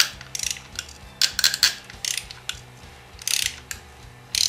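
Ratchet wrench clicking in short bursts as its handle is swung back between pulls, loosening a spark plug with a deep spark plug socket on an extension.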